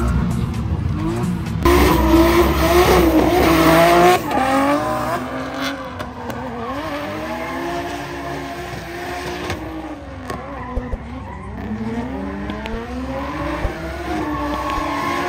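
Drift car engines revving hard, the pitch swinging up and down as the cars slide. Loudest during a pass about two seconds in.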